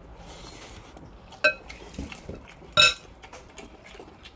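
Dishes clinking at a table during a meal: two sharp, ringing clinks, about a second and a half in and again just before three seconds, with faint small clicks between.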